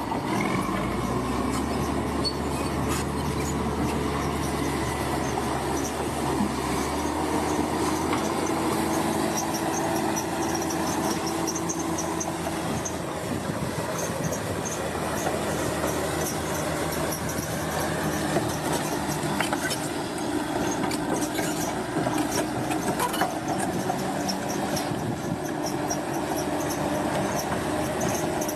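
Large crawler bulldozer at work: its diesel engine runs steadily under the clatter of steel tracks, with many short clanks and knocks throughout.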